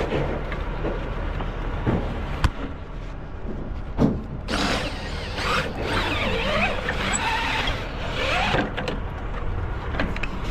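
A forklift working a load off a flatbed trailer: its engine runs steadily, with a sharp knock about four seconds in. Creaking and squealing metal follows for about four seconds.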